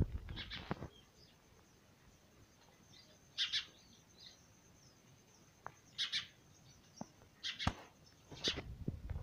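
Sparrows perched under the eaves giving short high chirps in brief clusters every couple of seconds, with a sharp knock at the very start and a few soft thumps.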